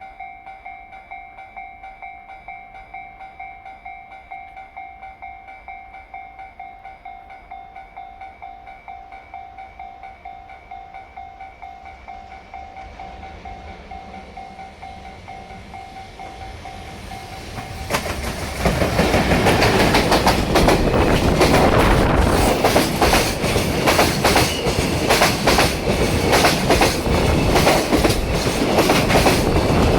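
Japanese level-crossing warning bell ringing in an even, rapid repeating high tone. About eighteen seconds in, a JR Freight EF210 electric locomotive and its container wagons reach the crossing, and a loud clickety-clack of wheels striking the rail joints drowns out the bell.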